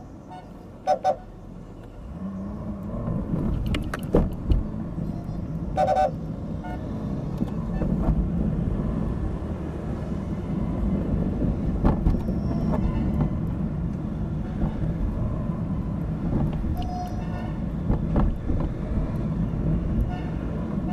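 City street traffic: vehicle engines and road noise running steadily, with short horn toots several times, two quick ones about a second in. A few sharp knocks stand out over the traffic.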